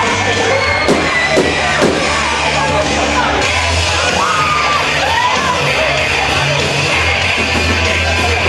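Loud dance-band music with a steady bass line, while people in the crowd yell and whoop over it.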